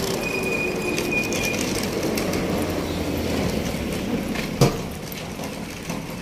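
Steady low mechanical rumble from a passing vehicle or heavy machine, with a thin high squeal for a second or so near the start. The rumble fades after about four and a half seconds, just as a single sharp knock sounds.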